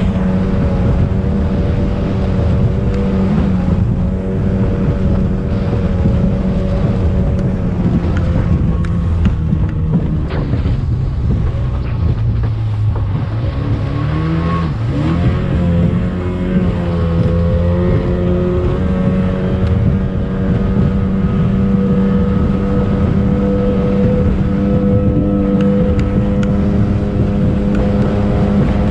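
Racing speedboat's engine running steadily, heard onboard with wind on the microphone and the hull running over the water. About halfway through the engine note drops, then climbs back up as the throttle is eased and opened again.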